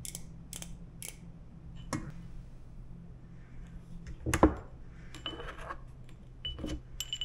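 A steel tube and small metal measuring tools handled on a wooden workbench: scattered light clicks and clinks, and one heavier knock about four and a half seconds in.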